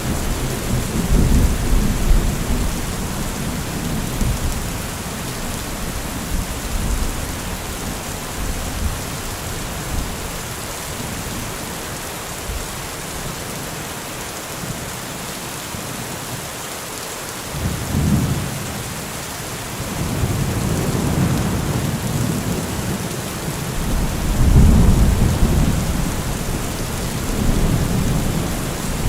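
Heavy rain falling steadily, an even hiss, with deep low rumbling swells that come and go: near the start, about two-thirds of the way in, and again toward the end.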